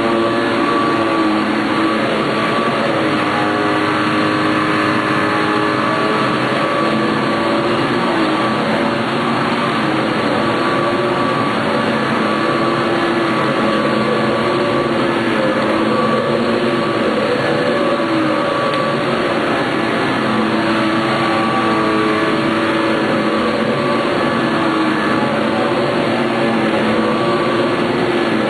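Hoover Z400 bagless upright vacuum cleaner running steadily, its motor giving a loud, even rush with a few steady tones that waver slightly in pitch.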